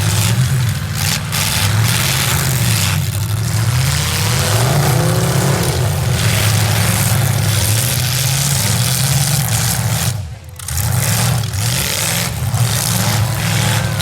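V8 demolition derby cars' engines revving, the pitch rising and falling again and again, with a brief dip about ten seconds in.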